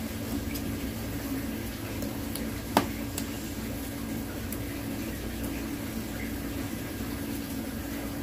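Steady low hum with an even hiss of background noise, broken by one sharp click a little under three seconds in.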